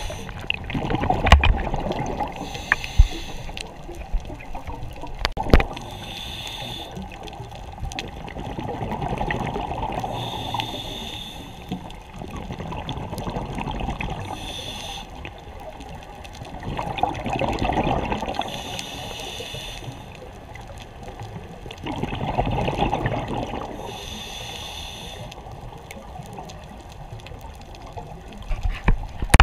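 Scuba diver breathing through a regulator underwater: a short hiss of inhalation, then a longer rush of exhaled bubbles, repeating about every four to five seconds. A few sharp knocks come in the first few seconds.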